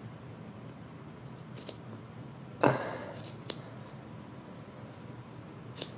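Scissors snipping through the plush fabric of a stuffed doll: a few separate snips, one of them louder a little under three seconds in.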